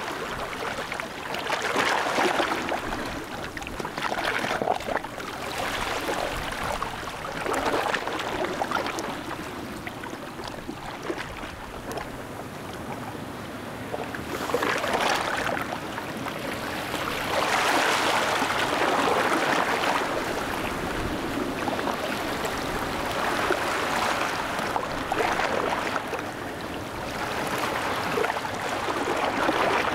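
Water washing and splashing in small waves, swelling and fading every few seconds.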